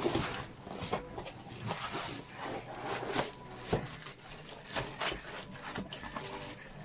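Box contents being unpacked by hand: irregular rustling of cardboard and paper with light knocks and scrapes.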